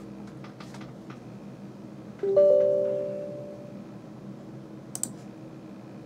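A few light clicks, then about two seconds in a two-note electronic chime, a lower note followed at once by a higher one, fading out over about a second and a half. A single sharp click near the end.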